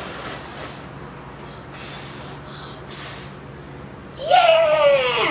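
A child blowing out a cake candle in several short puffs of breath. About four seconds in comes a loud, drawn-out exclamation in a high voice, falling in pitch.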